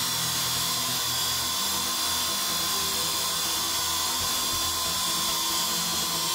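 Abrasive cut-off saw (chop saw) cutting through a rectangular steel tube: the abrasive disc grinding into the metal with a steady, high-pitched whine that doesn't let up.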